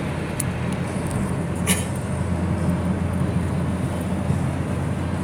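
Steady car-cabin noise of a car being driven at road speed, a low engine and tyre rumble. A brief click about half a second in and a short sharp crackle near two seconds in.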